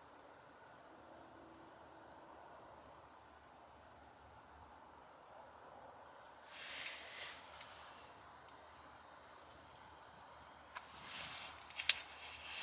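Quiet woodland ambience: scattered faint, very high, short bird chirps, two brief rustling bursts, and a sharp click near the end.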